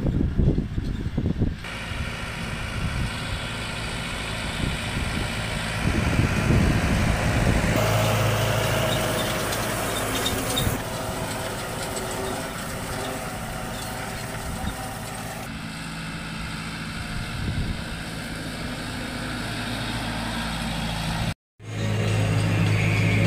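John Deere 5100R tractor engine running steadily while pulling a Kuhn GA 8830 twin-rotor hay rake through cut grass, with wind buffeting the microphone in the first second or two. Near the end, after a brief dropout, it is heard from inside the cab as a steady low engine hum.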